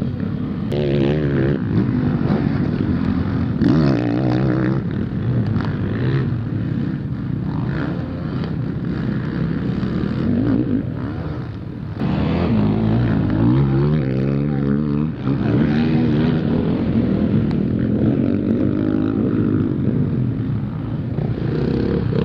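Motocross bike engines revving hard, their pitch rising and falling over and over as the riders open the throttle and shift.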